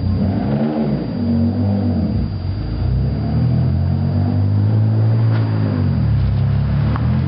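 Mitsubishi 3000GT VR4's twin-turbo V6 running and being revved, rising and falling back twice. The engine has a knock that its owner suspects is a spun bearing.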